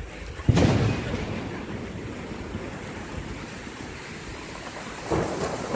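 Rough monsoon sea surging against the concrete tetrapods of a sea wall: a steady wash of surf, with a loud crash about half a second in and a smaller surge near the end.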